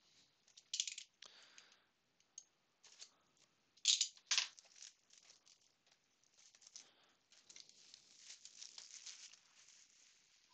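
Plastic shrink wrap being torn and stripped off a trading card box: sharp crackling snaps about one second in and again about four seconds in, then a longer stretch of crinkling.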